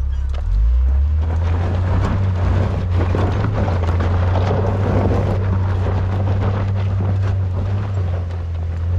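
Jeep engine running under steady load on a dirt trail, its low drone stepping up in level about half a second in, with scattered clicks and crunches over it.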